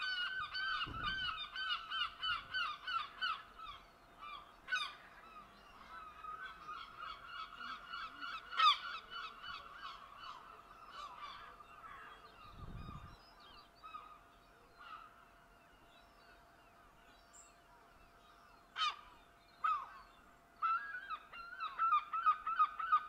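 A flock of birds calling in quick repeated series: dense at first, thinning out through the middle and strong again near the end. A few sharp clicks and two low thumps come in between.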